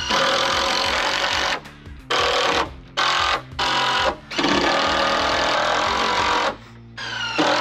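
Cordless impact driver driving screws into the wooden roof framing, in about six bursts: a long run at the start, three short ones, a longer run in the middle and another starting near the end.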